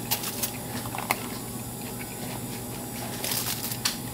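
A few short clicks and crinkles from foil and a styrofoam takeout container being handled, over a steady low hum.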